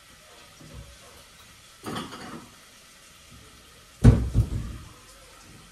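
Kitchen handling noises: a short rustle about two seconds in, then a sudden loud knock followed by a couple of quick clunks about four seconds in, as cookware or a cupboard is handled at the stove.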